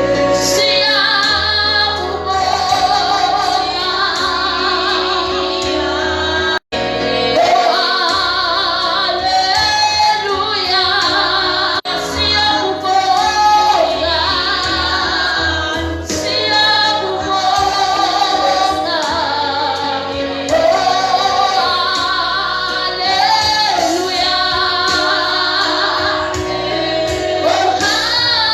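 Gospel music with a woman's singing voice leading the melody over sustained accompaniment. The sound drops out for an instant about seven seconds in.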